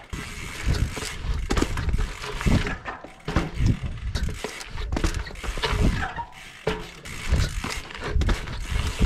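Mountain bike tyres rolling and scraping on hard flat ground, with repeated knocks and thumps as the bike is hopped, pivoted and set down during flatland tricks.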